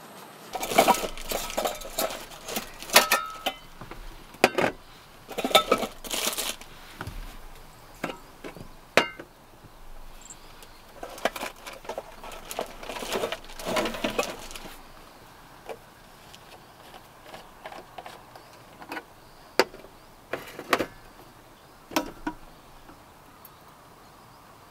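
Small objects being handled at close range: irregular clinks, knocks and rustling in two busy spells, then only a few scattered clicks.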